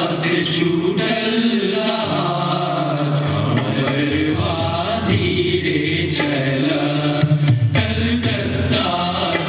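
A group of men singing, chant-like: an old folk song of the Indian indentured immigrants about the sea voyage from Calcutta. A steady low accompaniment holds beneath the voices.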